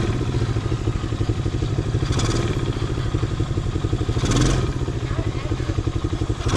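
Quad (ATV) engine running at low revs with a rapid, even putter. Short rushes of noise come in about two, four and six and a half seconds in.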